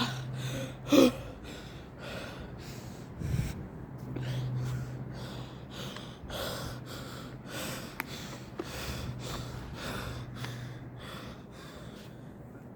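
A person breathing hard close to the microphone, in short breaths about twice a second, over a steady low hum, with one dull thud about three seconds in.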